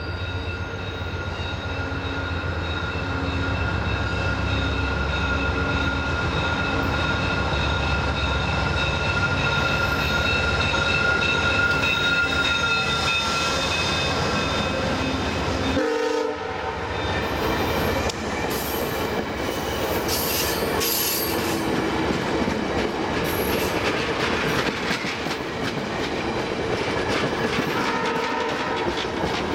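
A VIA Rail passenger train passes close by, led by a GE P42DC diesel locomotive. For the first half there is the locomotive's low engine rumble with several steady sounding tones over it, likely its horn. About sixteen seconds in the sound drops away briefly, and then the stainless-steel coaches roll past with the clickety-clack of their wheels on the rail joints.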